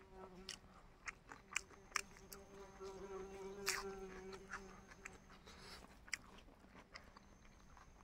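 A person chewing food close to the microphone: a string of sharp wet mouth clicks and smacks. Under it runs a steady low buzz that fades out about five seconds in.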